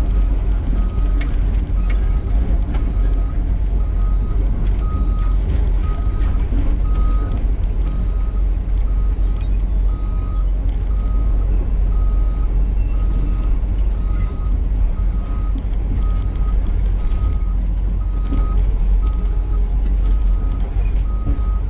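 Excavator diesel engine running with a steady low rumble as the machine tracks, its travel alarm beeping evenly a little over once a second.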